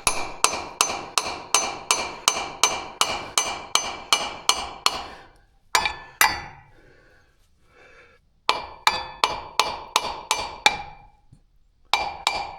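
Hammer tapping a new pulley onto the keyed shaft of a combine's feeder-belt hydraulic pump, each metal-on-metal strike ringing briefly. The taps come about three a second for the first five seconds, then in shorter runs after pauses as the pulley is driven home.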